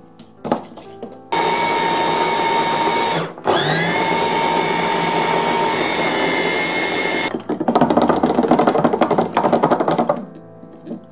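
Electric mini chopper's motor running with a steady whine while grinding caramelised hazelnuts into praline paste; it stops briefly about two seconds in and spins back up with a rising whine. After it stops comes a few seconds of rapid, loud clattering, with a few clicks before the motor starts.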